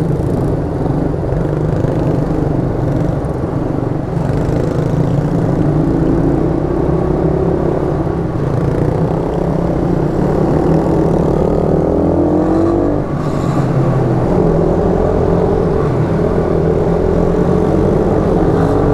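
YCF 88 cc four-stroke mini-moto engine running under the rider, its note rising and falling several times with the throttle, with other mini bikes running close by.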